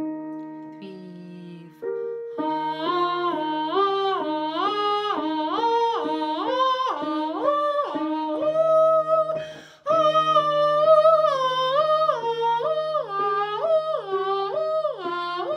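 A woman singing a vocal warm-up exercise: quick stepwise note runs up and down the scale in two long phrases, with a breath between them about halfway through. A steady backing chord is held underneath.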